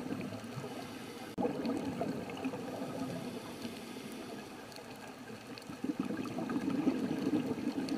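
Steady sound of trickling, bubbling water, growing a little louder near the end.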